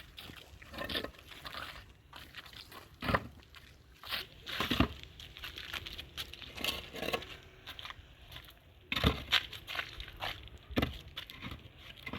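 Irregular knocks, scrapes and crunching of objects being handled, with a few louder thumps about three, five, nine and eleven seconds in.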